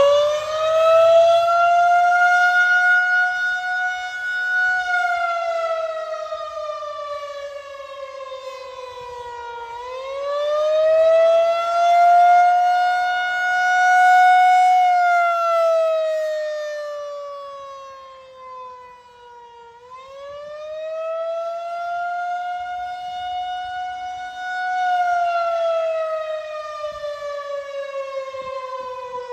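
Federal Signal 2001-130 tornado siren sounding its monthly test in a wail: one loud tone that climbs, holds and slowly sinks in pitch, three times at about ten-second intervals.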